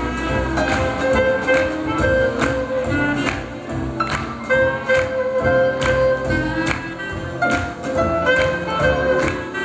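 Live swing jazz band playing an up-tempo tune, with held melody notes over a steady, even beat.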